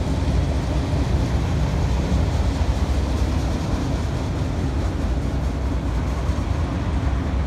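Freight train of autorack cars rolling past: a steady low rumble of steel wheels on the rails.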